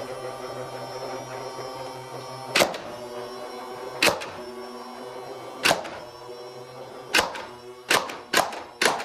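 Foam darts striking a small handheld plastic target: seven sharp clacks, spaced out at first and coming quicker near the end, over a steady background hum.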